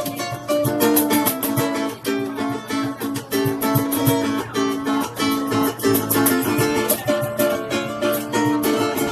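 Ukuleles strumming an instrumental tune, with quick, even strokes under a plucked melody line.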